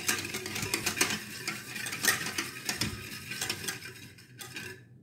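Wire whisk beating milk and custard powder in a small metal saucepan: quick, repeated clinks and scrapes of the wires against the pan. It stops abruptly near the end.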